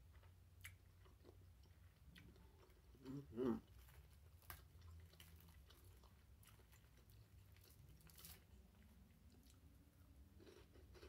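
Faint chewing and mouth sounds of someone eating creamy seafood pasta, with scattered small clicks and one louder mouth sound about three seconds in.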